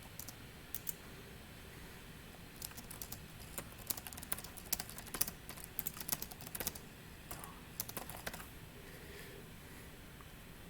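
Typing on a computer keyboard: irregular runs of quick key clicks with short pauses, busiest through the middle stretch.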